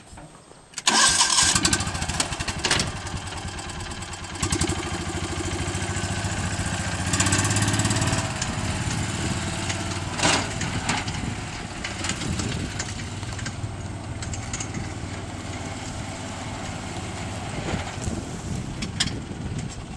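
Kawasaki utility vehicle's engine starting about a second in, then running steadily as it drives off towing a loaded log arch, with a few short knocks along the way.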